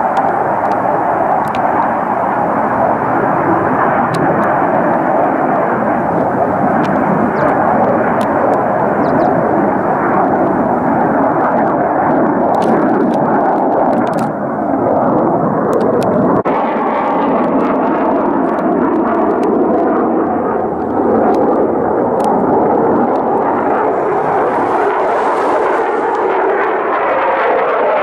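F-16 fighter jet's single turbofan engine, loud and steady as the jets fly by. In the second half a slowly sweeping, wavering tone comes into the noise and grows toward the end as a jet passes close.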